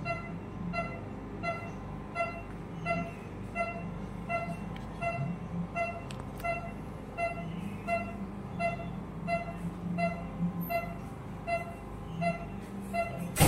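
Patient monitor's pulse beep sounding steadily, about three short electronic beeps every two seconds, keeping time with the patient's heartbeat, over a low room hum. A sharp click comes at the very end.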